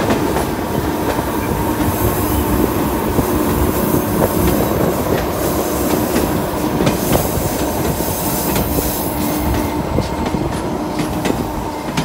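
Narrow-gauge White Pass & Yukon Route passenger train running along the track: a steady rumble of wheels on rail with scattered clicks at the rail joints and a faint steady squeal from the wheels on a curve.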